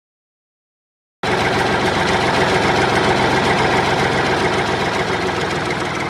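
Silence for about a second, then an excavator's engine comes in abruptly, idling steadily.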